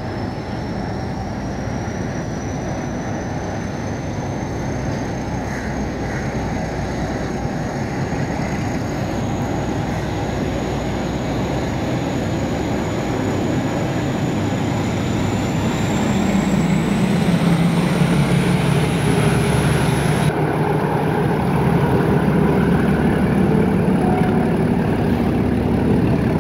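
ALCO diesel locomotive running past while shunting a passenger coach rake: a steady engine rumble that grows heavier about two-thirds through as the locomotive comes alongside, with a thin high whine climbing slowly in pitch.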